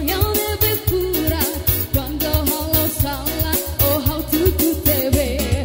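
A woman singing live into a handheld microphone with vibrato, over loud amplified backing music with heavy bass and a steady drum beat.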